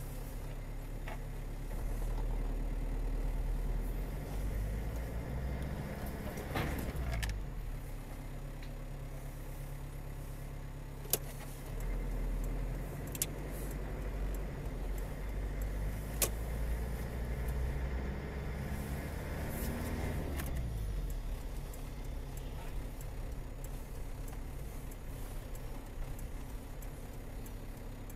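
Car engine and road noise heard from inside the cabin of a moving car, the engine pitch changing twice as it pulls away and shifts. A few sharp clicks or rattles stand out near the middle.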